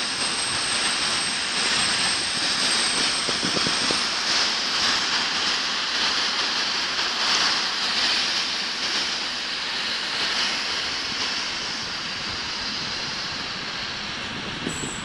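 Container freight train rolling past: a steady rush of wheel and rail noise that eases slightly toward the end, with a thin high whine over the first few seconds.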